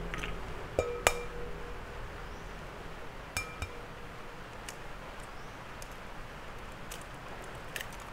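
Eggs knocked against the rim of a glass mixing bowl to crack them. There is a handful of sharp clinks, the loudest about a second in, and the glass rings briefly after the first few.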